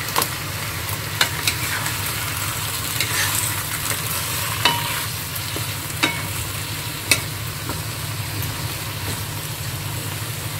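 Bok choy sizzling in a wok in a little oil, water and stock, with a few sharp clacks of a wooden spatula against the pan as it is stirred, over a steady low hum.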